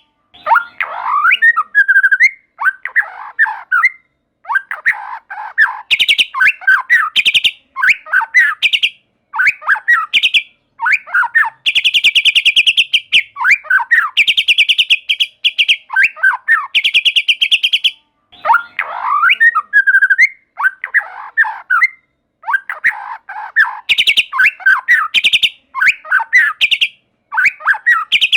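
White-rumped shama singing: quick phrases of swept whistled notes alternating with loud, rapid rattling trills, one after another with only short gaps.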